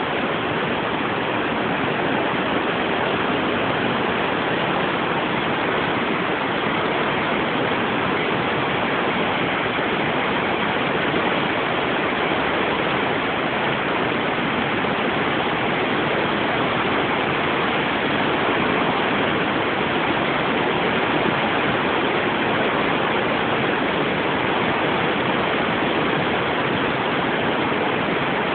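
River in flood, its fast floodwater rushing with a steady, loud, unbroken wash of water noise.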